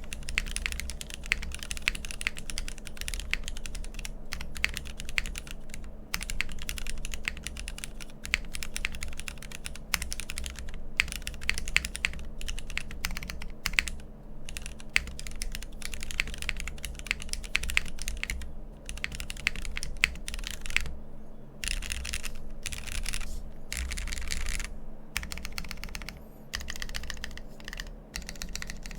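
Continuous fast typing on a Geonworks F1-8X tenkeyless custom mechanical keyboard with Cherry MX Black linear switches on an aluminium plate and Hammerworks CRP R5 keycaps. It makes a dense run of clacky keystrokes, broken by a few brief pauses.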